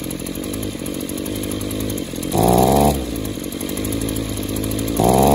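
Echo PE-280 edger's two-stroke engine running roughly at low revs, its speed rising briefly twice, about two seconds in and near the end. It is loading up instead of running clean, which the mechanic suspects is a stopped-up exhaust or a scored piston and cylinder.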